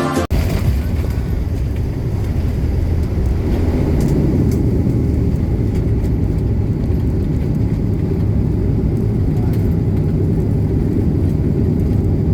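Steady low rumble inside an airliner cabin during landing, with a few faint rattles.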